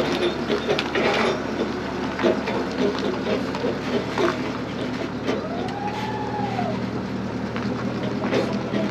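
A machine engine running steadily, with repeated metal clanks and knocks from work on the sawmill, and a brief whine that rises and falls about six seconds in.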